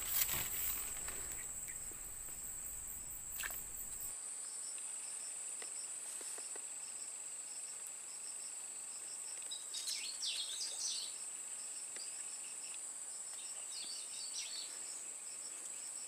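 Outdoor insect chorus: a continuous high-pitched whine with a second insect chirping in a steady pulse from about four seconds in. Short warbling bird calls come twice, around ten seconds in and again near the end, and a low rumble stops about four seconds in.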